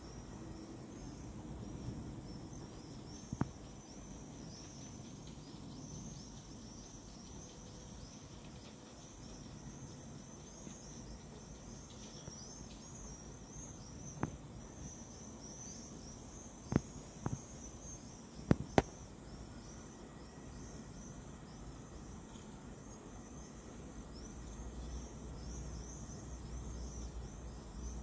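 Crickets chirping in a fast, steady, unbroken trill, with a few sharp clicks scattered through. The loudest clicks are a close pair about two-thirds of the way in.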